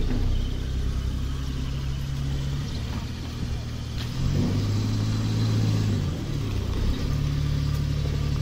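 Suzuki Bolan van's small three-cylinder petrol engine running at low speed, its pitch rising a little about four seconds in and settling back about six seconds in.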